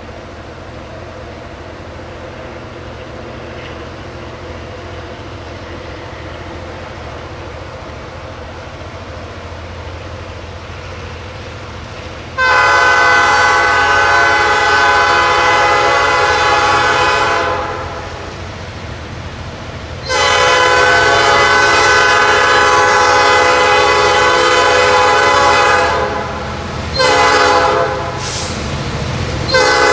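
Freight train's diesel locomotives working up a steep grade, a low rumble that slowly grows louder as they approach. About twelve seconds in, the locomotive's chord horn blows the grade-crossing signal: two long blasts, a short one, and the start of a final long one.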